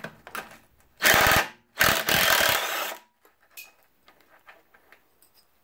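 Ryobi cordless impact driver running in two bursts as it backs out the bolts of a Ford Model T engine's pan: a short burst about a second in, then a longer one just after. A few faint metal clicks follow.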